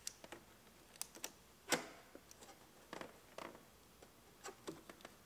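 Scattered light plastic clicks and taps from handling a Cadillac XTS dash trim panel and plugging in its ambient lighting wire connector, with one louder knock nearly two seconds in.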